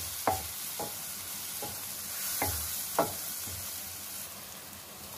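Chopped onions and tomatoes sizzling in oil in a speckled nonstick kadai as a wooden spatula stirs them. The spatula scrapes and knocks against the pan about six times over the steady hiss of the frying.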